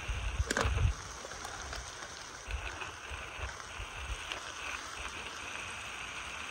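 Beef frying in a pan over a small wood-burning camp stove, a steady sizzle, with a knock about half a second in. Wind buffets the microphone in the first second.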